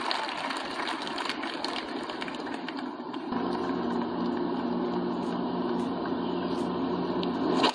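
Even outdoor hiss from a broadcast's course microphones. About three seconds in, at a cut, a steady low mechanical hum joins it and holds.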